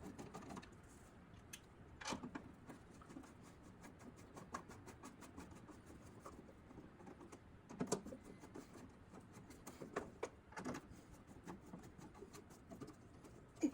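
Scattered light clicks and knocks of hand tools and metal and plastic parts, as screws on a car door's window regulator lock mechanism are tightened. The clicks come irregularly, with a few sharper knocks standing out.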